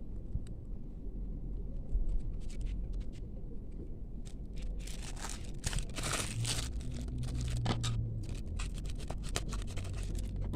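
Packaging being handled and opened by hand: scattered small clicks and taps at first, then crinkling and tearing from about halfway through.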